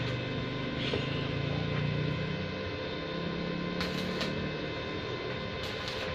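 A steady electrical hum made of several held tones, under a low drone that swells and fades in the first few seconds. Two short hissing bursts come about four and six seconds in.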